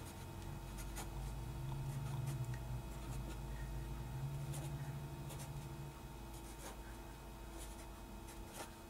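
Marker pen writing on paper: faint, scattered short scratches and taps as small numbers are written. A low background hum fades about six seconds in.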